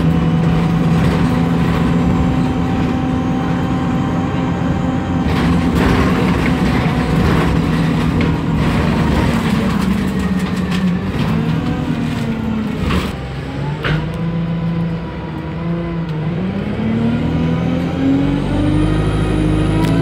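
Alexander Dennis Enviro200 single-decker bus heard from inside the saloon: its diesel engine and transmission run steadily, then the engine note falls as the bus slows about two-thirds of the way in, with a couple of sharp clicks. Near the end the note rises again as the bus pulls away.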